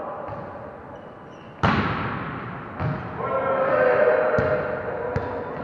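Volleyball struck with a sharp, echoing smack about a second and a half in, then a second, softer hit. Voices call out across the hall.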